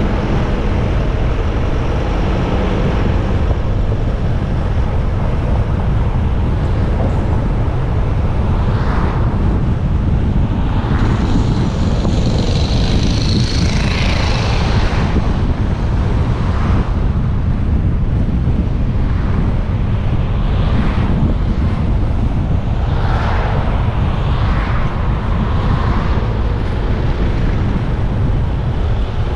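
Steady rush of wind and road noise on the microphone of a moving motorcycle, with a deep rumble throughout. Several times, passing vehicles swell up and fade away.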